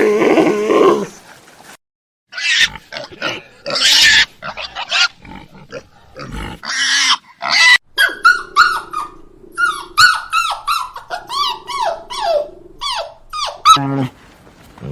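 Animal cries: a pitched call at the start, then harsh squeals, then a rapid run of short high cries that each fall in pitch.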